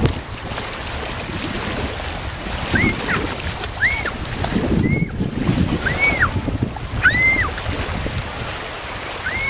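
Wind buffeting the microphone over small waves lapping in the lake shallows, with splashing as a child kicks through the water. From about three seconds in, short high squeals that rise and fall come roughly once a second.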